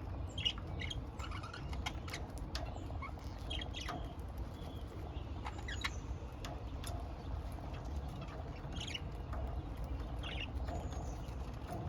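Pet budgerigars chirping in short, scattered calls, with sharp clicks among them, over a steady low hum.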